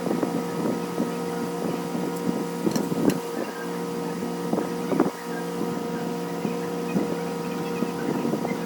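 A steady machine hum holding several fixed pitches, with scattered sharp clicks and taps over it.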